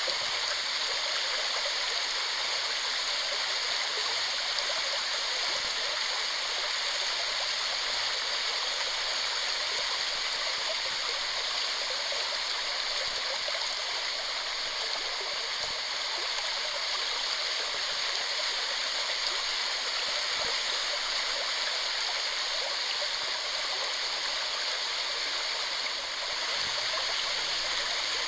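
Waterfall: a steady rush of falling water, even and unbroken, with the sound concentrated high and little low rumble.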